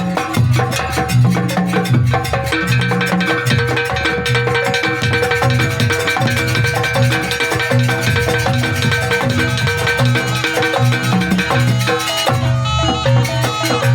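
Live jaranan gamelan ensemble playing a fast sampak piece: hand drums beating a steady driving rhythm under ringing tuned metal percussion. Near the end the highest sounds briefly drop out.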